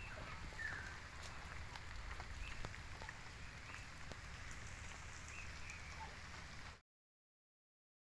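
Faint outdoor background: a low steady rumble with scattered soft ticks and a few faint high chirps. It cuts off to dead silence about seven seconds in.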